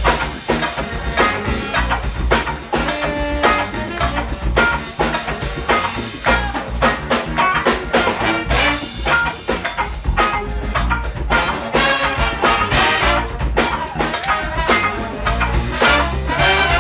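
Marine Corps big band playing live: saxophones, trumpets and trombones over electric guitars, bass and drum kit, with a steady beat.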